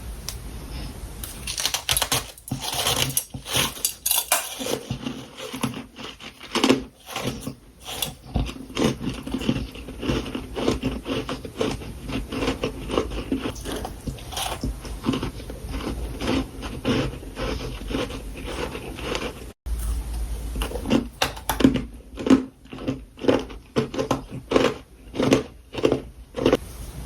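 Close-miked crunching and chewing of powdery freezer frost, a dense run of quick crisp crunches one after another.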